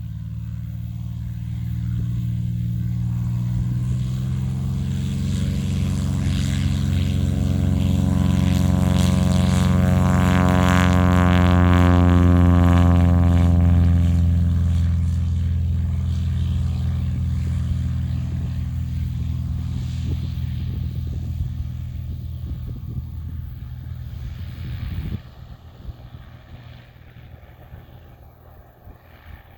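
Cessna 206 single-engine propeller plane at takeoff power, its engine and propeller drone growing louder as it passes about halfway through, the pitch sliding down as it goes by, then fading away. The level drops suddenly near the end.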